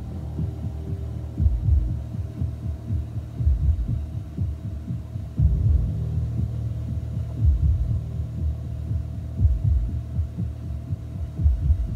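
Cessna 182's piston engine and propeller droning steadily in cruise, heard inside the cabin, with irregular low thumps and surges over the drone.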